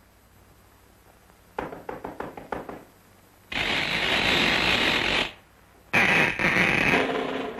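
Early sound-cartoon sound effects: a quick run of about eight light knocks, then a harsh noisy rasp lasting almost two seconds, then after a short pause another rasping burst with a pitched tone in it.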